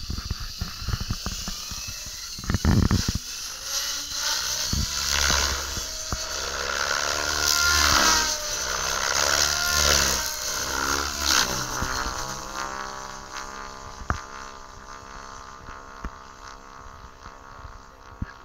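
Radio-controlled 3D helicopter lifting off and flying: the whine of its motor and rotor blades wavers up and down in pitch, loudest about halfway, then fades as the helicopter climbs high overhead. A brief low rumble comes about three seconds in.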